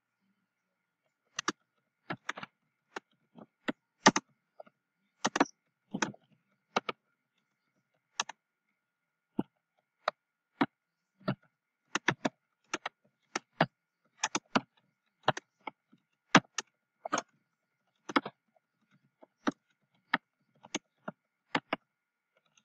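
Computer keyboard being typed on: irregular, separate key clicks, sometimes two or three in quick succession, with pauses between.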